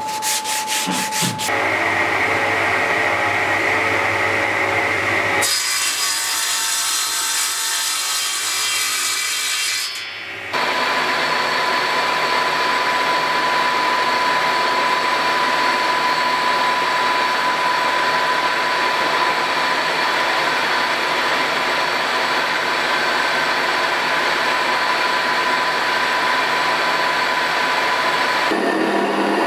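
A few quick rubbing strokes of hand sanding along a wooden slat, then several seconds of changing workshop noise. About ten seconds in, a drill press starts boring into a hardwood block held in a machine vice: a steady motor whine over the hiss of the bit cutting the wood, running on until a cut near the end.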